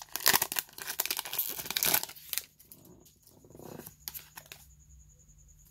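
Foil trading-card booster pack being torn open and crinkled by hand: a dense crackle for about the first two seconds, then only faint handling sounds.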